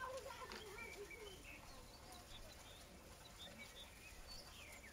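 Faint bird chirps, scattered through an otherwise quiet outdoor background.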